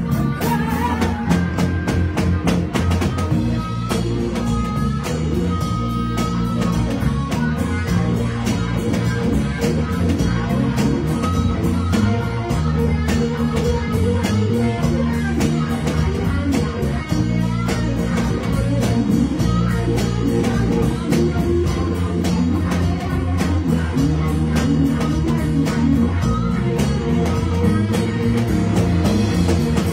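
Live blues band playing an instrumental passage: electric guitar lead over bass guitar and a drum kit.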